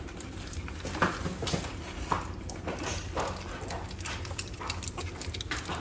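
Three-week-old French bulldog puppies making short squeaks and scattered soft clicks and smacks as they lick at a tray of weaning mush and scrabble on the puppy pads.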